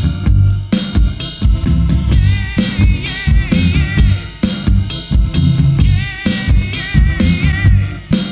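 A live rock band playing: a drum kit keeps a steady beat with bass drum and snare under electric guitar, bass and keyboard. A wavering lead melody line sits above the band.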